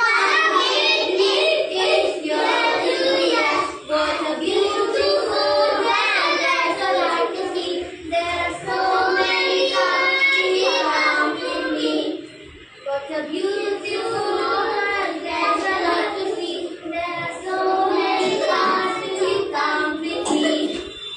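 A group of young children singing a counting song together, with a short break about twelve seconds in.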